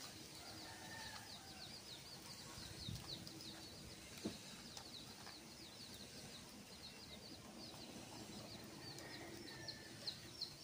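Birds chirping: a steady stream of short high chirps, several a second, with faint chicken clucking underneath.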